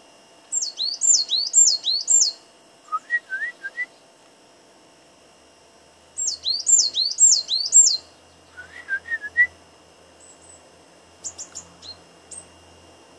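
A small songbird singing twice a loud phrase of several rapid, high whistled notes, each sliding steeply down. After each phrase comes a softer, lower phrase of short whistled notes, and a few faint high notes sound near the end.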